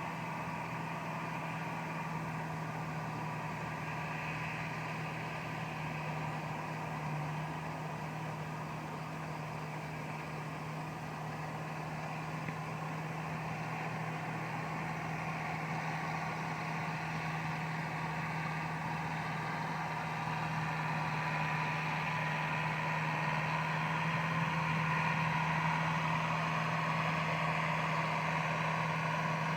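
Case 895 tractor's engine running at a steady speed, getting a little louder in the second half.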